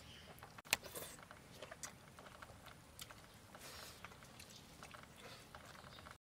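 Eating sounds from people having rice and curry by hand: soft chewing and scattered small clicks, with one sharp click about a second in.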